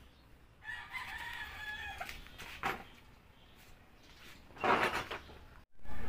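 A rooster crowing once: one long call of about a second and a half, starting just under a second in. A louder short burst of noise follows near the end.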